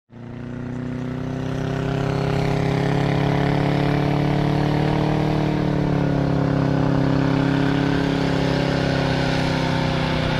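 Engine of a small tracked snowcat running steadily as it drives through deep snow. The sound fades in over the first two seconds, then its pitch rises a little and eases back.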